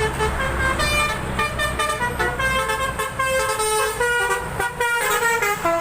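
Bus telolet horn, a multi-tone electric horn, playing a fast tune of quickly changing notes, over the low rumble of the bus's engine.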